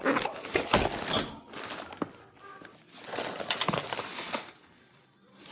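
Handling noises: irregular scraping and rustling with a few sharp clicks.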